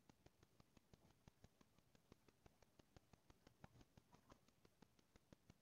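Near silence: room tone with faint, rapid, evenly spaced clicking, several clicks a second.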